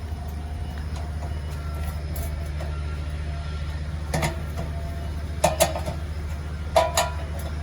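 A spanner clinking against the generator's metal frame and bolts: single clinks about four seconds in and again near the end, with a quick pair between them, each with a short ring. A steady low hum runs underneath.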